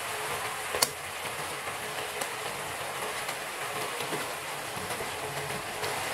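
Chili sauce simmering and sizzling in a nonstick frying pan: a steady hiss with small scattered pops. There is one sharp click about a second in.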